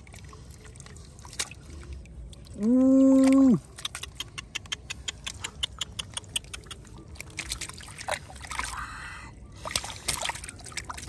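Shallow water in a woven bamboo basket sloshing and splashing as hands grab koi and goldfish. Partway through comes a quick run of small wet slaps and splashes. About three seconds in, a person's voice holds one steady note for about a second, the loudest sound.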